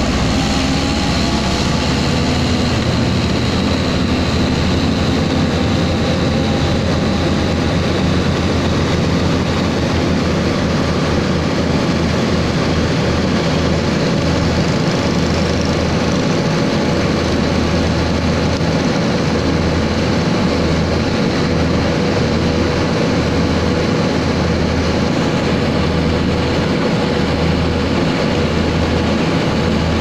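Diesel engine of an asphalt road roller running steadily, heard close up. Its low hum begins to flutter on and off from about halfway through.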